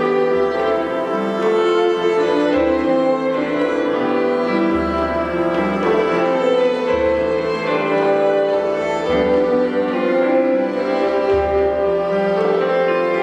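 Small acoustic ensemble playing, with violins over separate low double bass notes.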